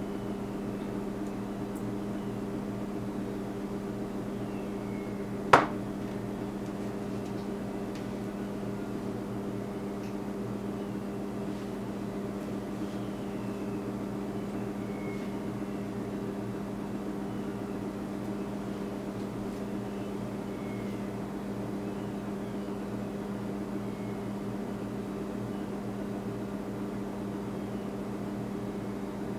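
A steady low machine hum, with a single sharp click about five and a half seconds in.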